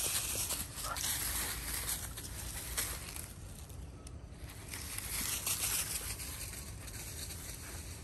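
Dry eucalyptus leaves rustling and crackling unevenly as an otter scrambles and walks over them, with a dog snarling at it.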